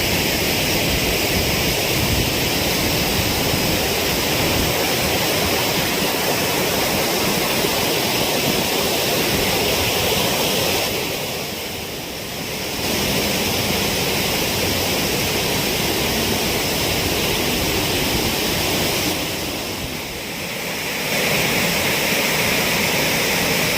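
Waterfall's rushing water: a steady, even rush that grows briefly softer twice.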